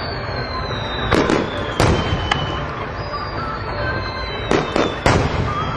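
Fireworks display: a string of sharp bangs from bursting shells, in two clusters of three or four, over a steady low rumble, with faint high whistles slowly falling in pitch.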